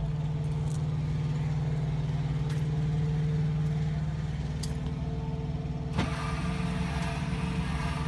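Electric rear stabilizer jacks of a Forest River Vibe 308BHS travel trailer lowering, their motor giving a steady hum. About six seconds in there is a click, and a buzzier noise joins the hum.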